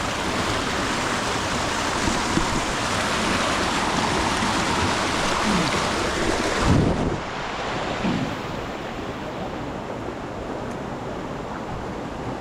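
Steady rushing of a waterfall, with a wind buffet on the microphone about seven seconds in; after it the rush is softer and duller.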